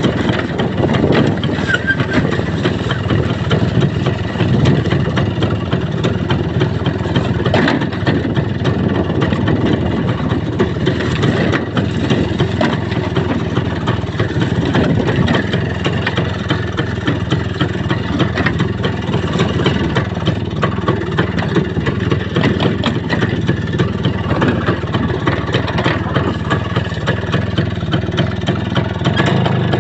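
Vehicle engine running steadily while driving, its low, rapid pulsing even throughout with no marked revving.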